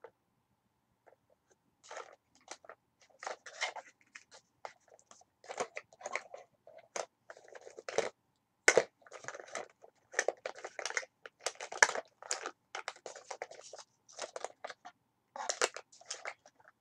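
Rummaging through makeup: an irregular run of small clicks, clacks and rustles as cosmetic containers are moved about, starting about two seconds in with brief pauses.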